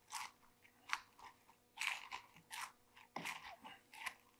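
Wooden pestle pounding fried chillies, garlic, shallot and shrimp paste in a wooden mortar, the chilli cracking and crunching under each stroke. The crunches come in short uneven strokes, roughly one every half second; the mixture is hard to crush.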